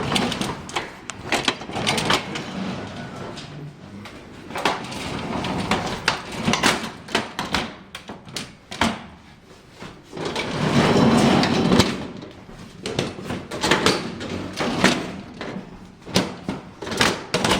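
The manual gate of a Schindler R-Series service lift being worked: a string of clicks, knocks and rattles, with a louder scraping rush about ten seconds in.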